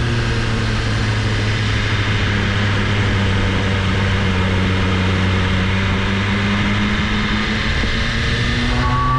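BMW S1000RR inline-four motorcycle engine running at a steady, unchanging pitch while riding at a constant low speed, with wind rush over it.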